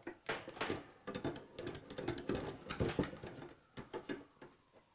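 Motorcycle lift jack being lowered under a bike: an irregular run of short mechanical clicks and knocks as the jack lets down and the bike settles onto its stands.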